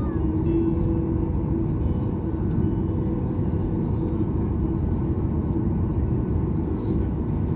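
Steady rumble of a jet airliner's engines and wheels heard inside the cabin during the landing rollout, with a steady low hum running through it.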